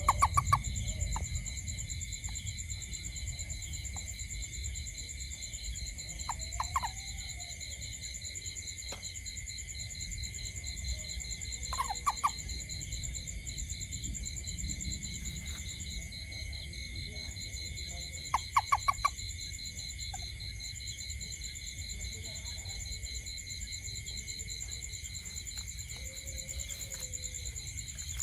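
A toad calling in short bursts of three to five quick pulses, four times a few seconds apart, over a steady high-pitched chorus of night insects and a low rumble.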